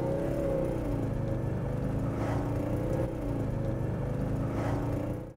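Mercedes-Benz W123 300TD's five-cylinder turbodiesel running while the car is driven, heard from inside the cabin, its pitch rising and falling with engine speed.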